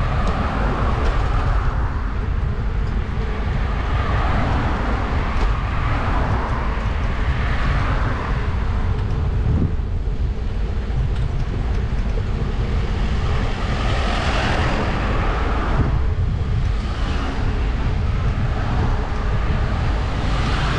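Steady wind rumble on the microphone of a camera moving along a road, with passing cars swelling and fading several times.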